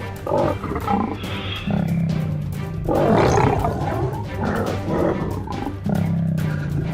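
Lion roaring over background music; the loudest roar comes about three seconds in.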